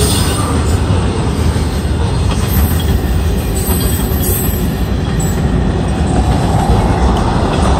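Freight train cars (boxcars, tank cars and covered hoppers) rolling past at a good pace: a steady rumble of steel wheels on rail.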